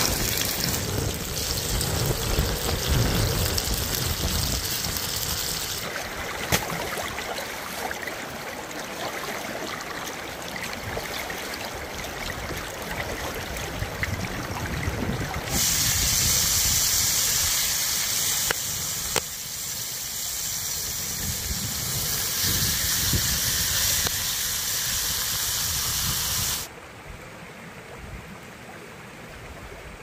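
Chicken breasts sizzling in hot oil on cast-iron pans, a steady hiss that jumps in loudness several times, with a couple of sharp clicks. Near the end the sizzling gives way to a quieter steady rush of running water.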